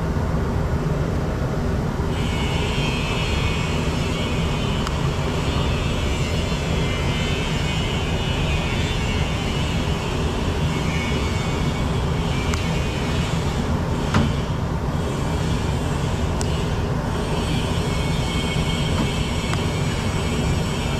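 RandBright HD-100 centerless grinder/polisher running: a steady motor hum under a broad hiss, with a higher hissing band coming in about two seconds in and a single sharp click about two-thirds of the way through.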